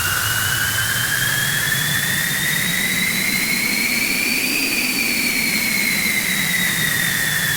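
Loud synthesized harsh noise: heavy static and a low rumble, with a whistling tone that rises slowly in pitch for about four and a half seconds, then slowly falls.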